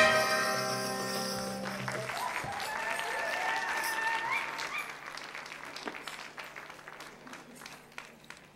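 A live acoustic band's final chord rings out over the first couple of seconds, then audience applause takes over. A rising cheer comes through the applause in the middle, and the clapping fades away toward the end.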